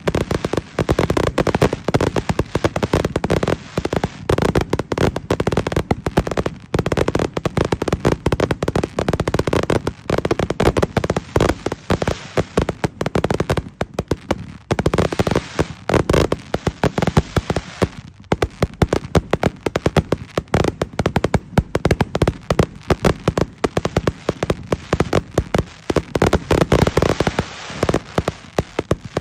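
A dense fireworks barrage: rapid, overlapping bangs and crackles going off without a break.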